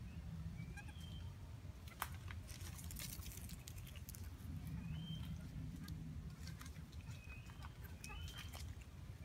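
Short, high chirping calls that rise and then level off, a few scattered through and a small cluster near the end, from an animal in the tree canopy. They sound over a low rumble, with bursts of crackling clicks about two to three seconds in.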